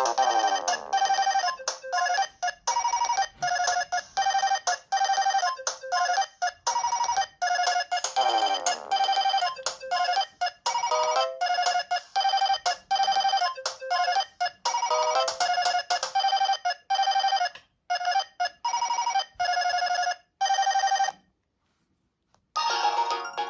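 Panasonic EB-G60 mobile phone playing one of its built-in ringtones: a bright synthesized melody of short, repeated notes with a couple of quick falling sweeps, stopping about 21 seconds in. After a brief silence, the next ringtone starts near the end.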